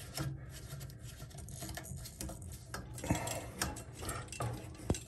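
Toilet water supply line's coupling nut being threaded and tightened onto the tank's fill valve: soft scraping with a run of small irregular clicks, and a sharper click near the end.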